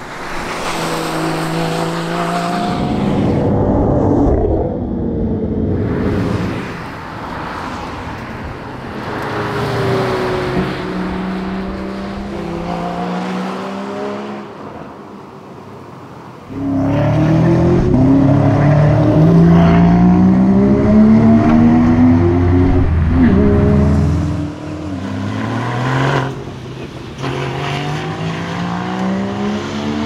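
Porsche Cayman GT4's naturally aspirated flat-six accelerating hard in several drive-bys, its revs climbing repeatedly and dropping back at each gearshift. The loudest pass comes a little past halfway.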